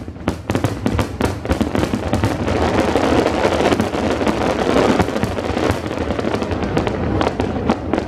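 Fireworks display: a dense run of bangs and crackling, many sharp reports overlapping, thickest in the middle.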